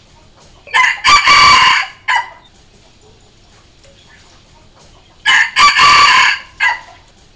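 A red junglefowl rooster crowing twice, about four and a half seconds apart. Each crow is a clipped phrase of about a second and a half: a short opening note, a longer middle and a brief final note.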